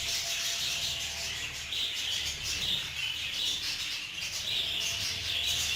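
Budgerigars chattering and chirping without a break, with a faint low hum underneath.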